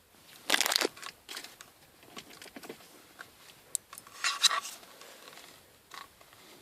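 Plastic crinkling and rustling from handling, in two short bursts about half a second and four seconds in, with a few small clicks between them.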